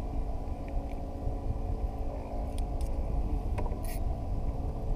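A boat engine hums steadily under a low rumble of wind and water on the microphone, with a few faint clicks in the second half.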